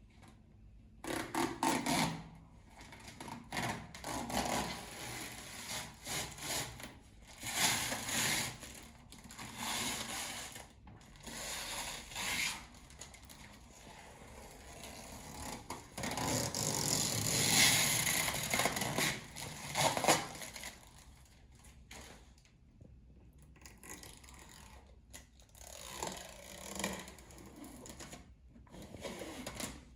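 Irregular scraping, rubbing and clattering of objects being handled, in short uneven bursts, loudest for a few seconds past the middle.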